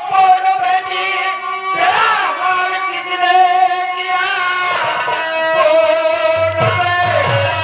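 Nautanki folk-theatre singing through a PA: a man's voice holding long, wavering drawn-out notes. Low, evenly repeated drum strokes come in near the end.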